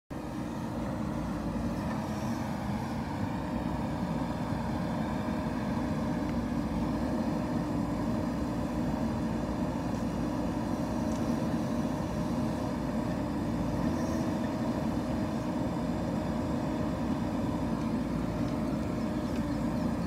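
JCB backhoe loader's diesel engine running steadily as the backhoe arm digs and loads soil.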